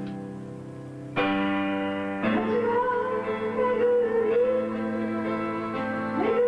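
Slow Japanese folk song performed live. A held accompaniment chord fades, a new chord is struck about a second in, and a woman's voice begins singing a held, wavering line about two seconds in.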